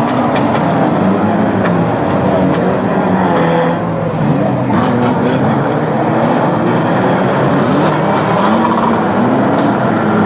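Many 2-litre banger racing cars' engines running and revving at once, their pitches rising and falling against each other, with a sharp crash of metal about halfway through as cars hit one another.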